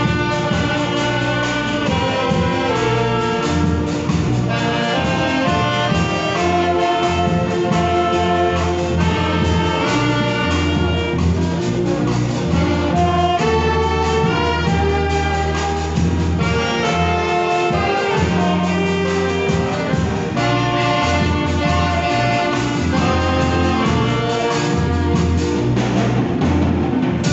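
A children's ensemble of saxophones with violins playing a gospel hymn tune in harmony, the notes held and moving together over a steady bass line.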